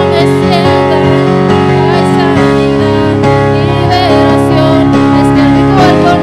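Church worship music: a singer over sustained keyboard chords and electric bass.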